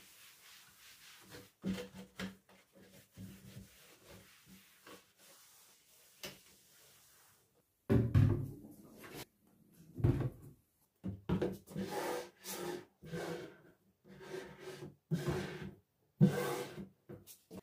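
Household objects being handled, with knocks, clatter and rubbing. Faint scattered taps at first, then from about halfway a run of louder thuds and rubs about every second.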